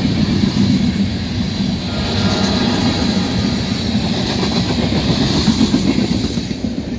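Norfolk Southern freight train rolling past, a steady rumble of cars on the track.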